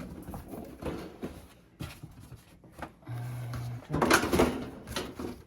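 Plastic appliance housing being worked loose by hand: scattered clicks and scrapes, a short steady motor whir about three seconds in, then a loud clatter of the plastic cover coming free.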